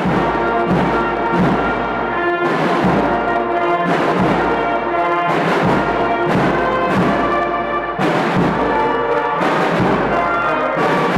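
A youth concert band playing: brass and woodwinds sound together in held chords over a steady drum beat.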